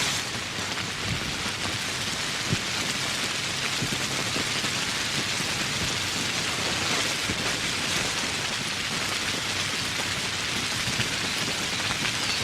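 Steady rain falling: an even hiss with scattered single drops ticking through it, one sharper tick about two and a half seconds in.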